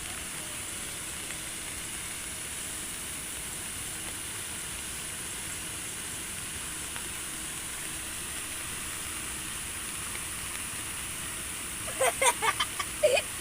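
Steady, even hiss of outdoor background noise, with a brief burst of a voice near the end.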